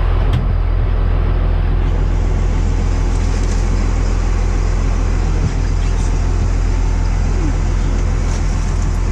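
An engine running steadily with a deep, even rumble.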